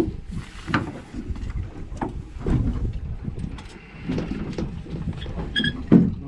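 Wind buffeting the microphone on a small boat, with irregular knocks and clatter as a black bream is drawn up on light tackle and scooped into a landing net; the loudest knock comes near the end, as the net is lifted over the rail.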